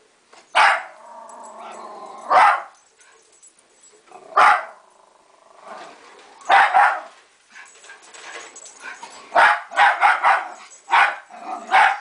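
Jack Russell terrier barking sharply at a carpet sweeper, with a growl between the first two barks. About a dozen barks, a few seconds apart at first, then coming in quick succession.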